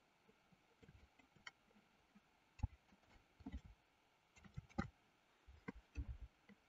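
Near silence with a handful of faint, sharp computer-mouse clicks scattered irregularly.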